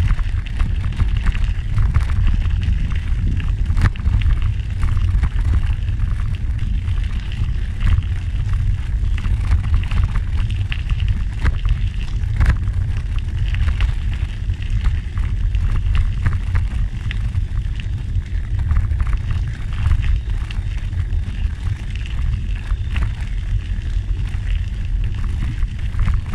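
Wind buffeting the microphone in a steady low rumble while moving along a gravel trail, with a constant fine crackle of gravel crunching.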